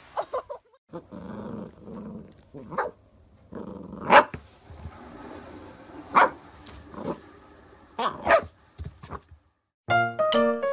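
Corgi puppy growling in play and letting out several short barks a couple of seconds apart. Piano music starts near the end.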